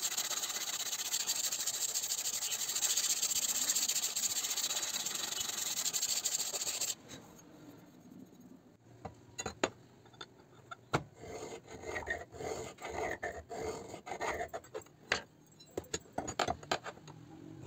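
Sharpening stone rubbed over the flat of a forged steel knife blade, a steady scraping that stops abruptly about seven seconds in. After it come scattered light clicks and knocks as the blade and tools are handled.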